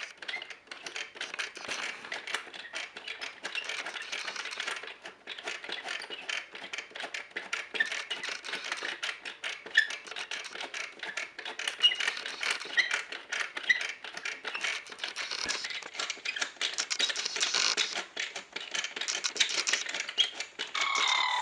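Plastic toy being handled: a rapid, irregular run of clicking and rattling.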